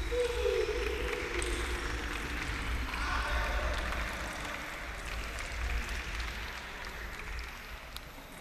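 Spectators clapping and cheering at the end of a game in a table tennis match, with a voice calling out at the start. The clapping dies away over several seconds.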